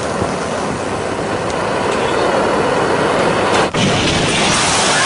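Fire sound effect: a steady rushing noise of flames burning. It breaks off for an instant near four seconds in and then resumes a little louder as a fireball erupts.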